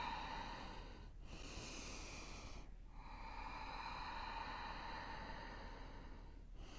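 A woman's slow, deep, audible breathing, deliberately slowed during a rest after exertion. One breath ends about a second in, a shorter one follows, then a long drawn-out breath of about three and a half seconds, and another begins near the end.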